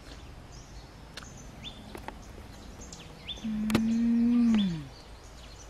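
A woman's closed-mouth "mmm" of enjoyment as she tastes a bite of fruit: one held tone a little over a second long that falls in pitch at the end. Birds chirp briefly in the background, with a few small clicks.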